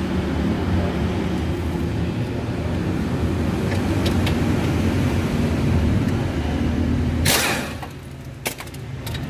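A steady, low mechanical rumble from a running machine. About seven seconds in, a short burst of hiss cuts across it, and then the rumble drops away, leaving a few light clicks.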